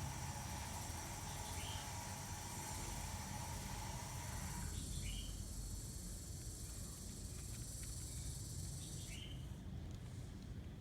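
Outdoor ambience of insects droning steadily, the drone dropping away sharply about halfway through, with three short, faint bird chirps spread across it over a low rumble.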